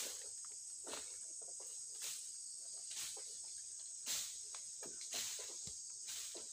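Steady high chirring of an insect chorus, with soft swishing or scraping bursts about once a second, the strongest about four seconds in.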